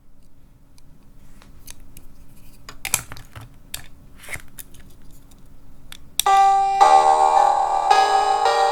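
Light plastic clicks from a capsule toy being handled, then about six seconds in its electronic sound chip plays a bell-like chime melody in a run of steady notes.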